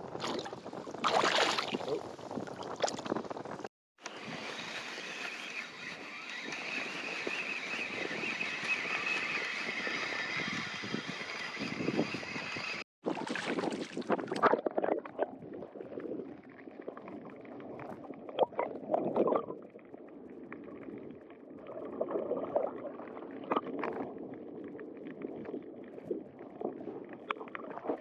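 Wind buffeting the microphone over moving shallow water, cutting off abruptly twice, with scattered short sharp sounds in the later part.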